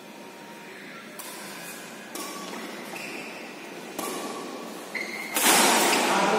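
Badminton rackets striking a shuttlecock in a rally: four sharp pinging hits about one to two seconds apart. Near the end a much louder, noisy burst sets in and drowns the rally.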